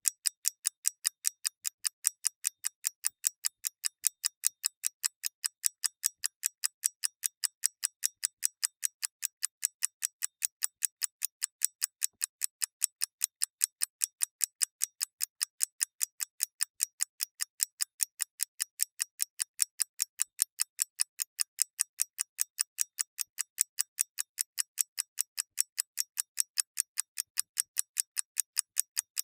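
Mechanical clock ticking steadily and evenly, several light, sharp ticks a second with no break.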